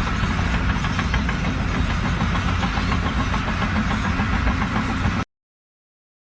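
An engine running steadily, with a fast pulsing low hum. It cuts off abruptly a little over five seconds in.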